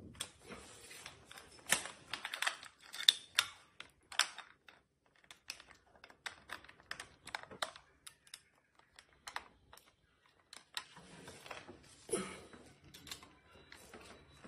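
Small hex socket screws being fitted and turned by hand into the metal bracket on a slingshot's frame: light, irregular metal clicks and ticks, with a cluster of louder clicks about two to four seconds in and another about twelve seconds in.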